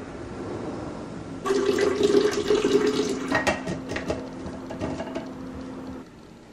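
Water running from a countertop water dispenser's spout into a tumbler. It starts about a second and a half in and cuts off near the end.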